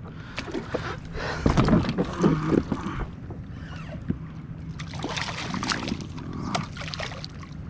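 Handling noises aboard a kayak: irregular knocks and clicks, loudest a second or two in, then scattered sharp clicks, with light water sloshing.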